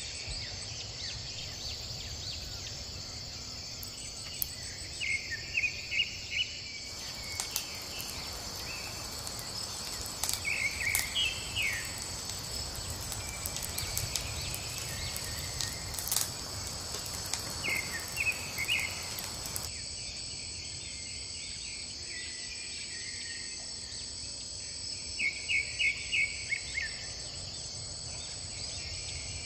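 Steady high-pitched chorus of forest insects, with a bird calling a short run of quick notes about four times. From about 7 s to 20 s a wood fire of dry kindling adds a soft hiss and a few sharp crackles.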